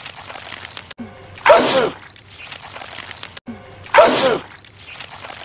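A man sneezing loudly, looped: two identical sneezes about two and a half seconds apart, each a short wind-up followed by a sudden explosive burst.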